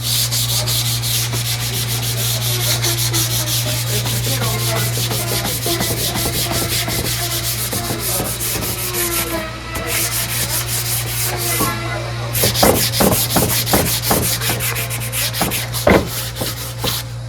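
Wood being sanded, a continuous fast scraping over a steady low hum. A run of sharp knocks comes in the last few seconds.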